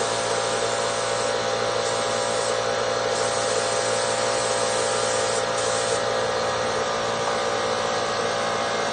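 Steady hiss of compressed air with a constant motor hum underneath, from automotive spray-painting equipment running without a break.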